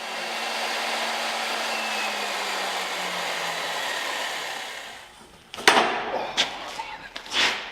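A power tool whirring steadily for about five seconds with a faint low hum sinking in pitch, then fading out as it winds down. A few sharp metallic knocks and clatter follow near the end.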